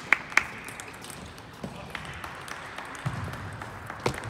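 Table tennis ball striking bats and table: a quick run of three sharp clicks at the start, then a couple more about four seconds in, over the steady background of a large hall.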